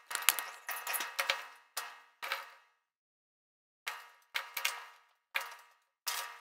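Plastic Lego pieces clattering and clicking in short bursts as they are handled, with a pause of about a second partway through.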